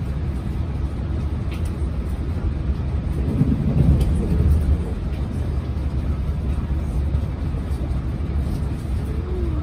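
Class 165 diesel multiple unit heard from inside the carriage at speed: a steady low rumble from the underfloor diesel engine and wheels on the rails, a little louder around four seconds in.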